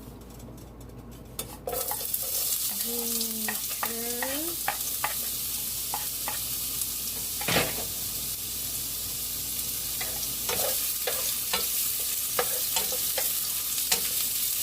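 Sliced ginger dropped into hot olive oil in a pan, sizzling steadily from about a second and a half in, with a utensil clicking and knocking against the pan as it is stirred.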